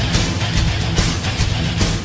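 Loud hard rock music with electric guitar, the goal song that follows the Los Angeles Kings goal horn.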